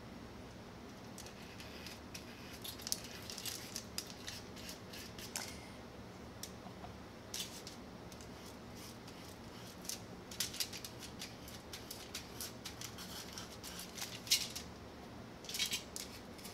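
Faint handling sounds of a craft being painted with a small brush: scattered crinkles and scratches from aluminum foil and the brush working on a wooden cutout, coming in short clusters over a low steady room hum.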